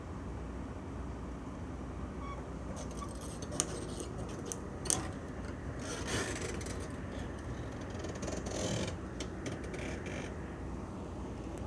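Steady low rumble of traffic or machinery, with a run of scraping and clicking noises in the middle and two sharp taps a second or so apart.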